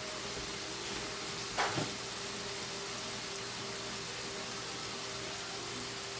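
Carrots, celery and onion frying in oil in a pan, a steady sizzle. About one and a half seconds in, a brief sound falls quickly in pitch.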